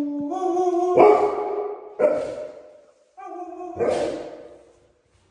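Alaskan Malamute vocalising: drawn-out woo-like sounds broken by sharp barks, the loudest about one, two and four seconds in.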